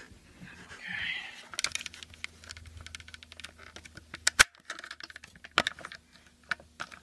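Rapid small clicks and taps of hands and an Allen wrench working at a smoke alarm's battery to pry it out, with a sharper snap about four seconds in and another near six.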